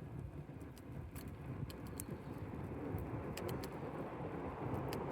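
Campfire burning: wood crackling with irregular sharp pops over a steady low rumble.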